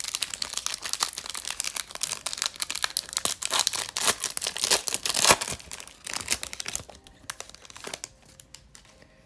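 Foil wrapper of a Topps baseball card pack being torn open and crinkled by hand: a dense crackling rustle for about six seconds that thins out and fades near the end.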